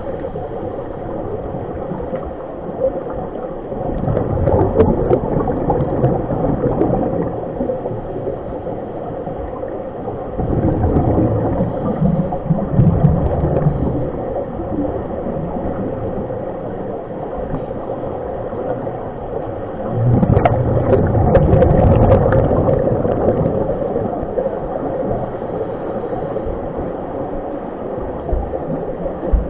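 Underwater sound in a swimming pool: a steady hum with gurgling, and three louder rumbling swells of bubbles, about four, ten and twenty seconds in, as scuba divers breathe out through their regulators.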